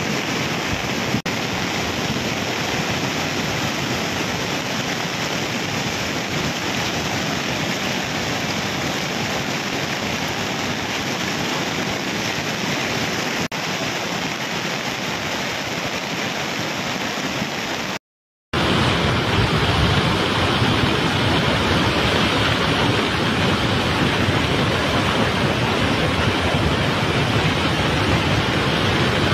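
Fast, muddy floodwater rushing in a flash flood, a steady noise of water. It drops out for a moment about eighteen seconds in and comes back louder.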